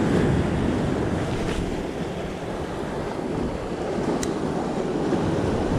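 Sea surf washing and breaking over shoreline rocks, a steady rushing noise mixed with wind buffeting the microphone. A single short click about four seconds in.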